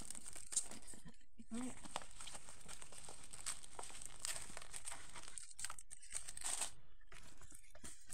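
Clear plastic packaging crinkling and rustling as a rolled diamond painting canvas inside it is unrolled and handled, with irregular crackles throughout.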